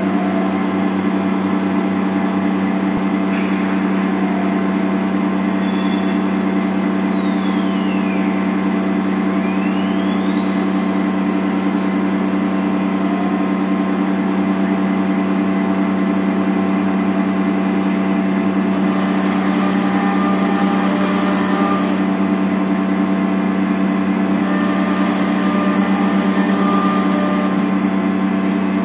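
TigerTec TR408AD CNC router running and cutting plywood: a loud, steady machine hum with a whine that glides down and back up about eight to ten seconds in. In the second half the hiss of the bit cutting the wood comes in twice, each time for about three seconds.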